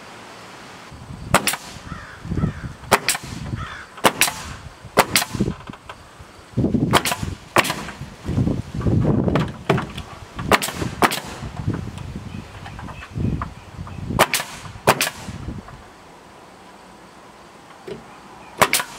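Pneumatic nail gun firing nails into rough-sawn wooden trim boards: sharp shots every second or two, many in quick pairs, with dull knocks of the board being handled between them.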